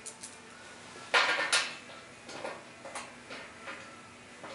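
Small metal parts clinking as stainless button-head bolts and hand tools are handled while being fitted to a hose reel: a loud clatter about a second in, then a few lighter clicks.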